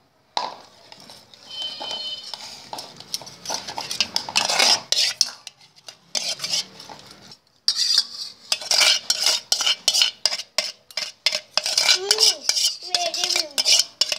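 Metal spoon clinking and scraping against a steel bowl as a toddler eats noodles: a run of quick clicks and scrapes, sparse at first and busiest in the second half.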